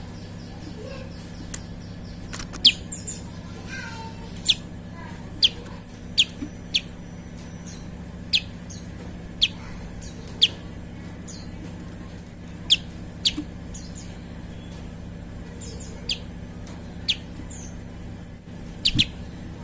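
Prenjak (prinia) calling: a series of short, sharp, high notes, each sweeping downward, repeated irregularly about once a second, over a steady low hum.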